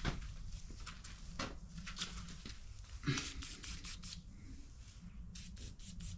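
Scattered light clicks, knocks and rubbing as a loosened CV axle and its tools are handled, over a steady low hum.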